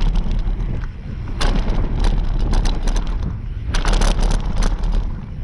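Mountain bike descending a dirt trail: wind buffeting the microphone over tyre noise on the dirt, with bursts of rattling and clicking from the bike over bumps about a second and a half in and again around four seconds in.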